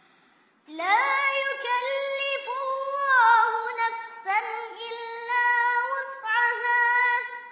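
Quran recitation in a high, melodic voice, drawing out long notes that slide up and down, starting about a second in with a brief break near the middle.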